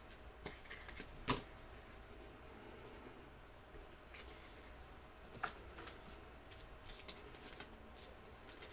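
Faint handling of trading cards: a soft rustle with a few sharp clicks, the loudest about a second in and another about five seconds in.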